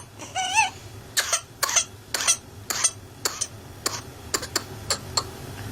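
A child coughing in a long run of short, rapid, back-to-back coughs, about three a second, with a brief squeaky breath near the start. This is the paroxysmal coughing fit of whooping cough (pertussis).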